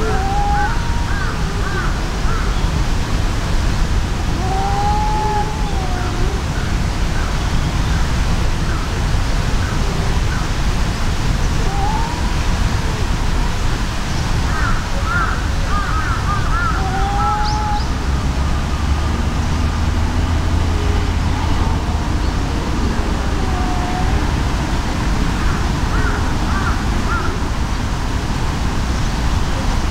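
Cats' drawn-out threat yowls in a standoff before a fight: about six long wails that rise and fall, each about a second, spaced several seconds apart. Under them runs a steady low outdoor rumble, with short high chirps now and then.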